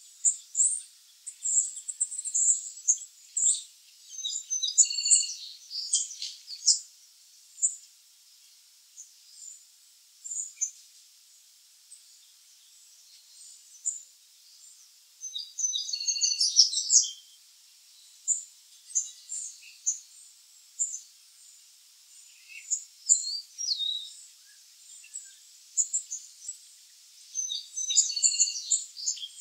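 Black-capped chickadees calling: short high chirps and twittering notes in scattered bursts, busiest in the first several seconds, around the middle and near the end.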